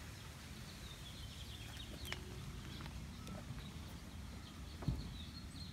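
Birds chirping over a faint, steady low rumble, with a sharp click about two seconds in and a dull thump near the end.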